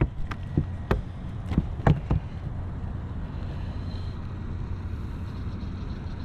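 A freshly landed small mulloway flapping on the boat's carpeted deck: a quick run of thumps in the first two seconds, then it goes still. A steady low rumble runs underneath.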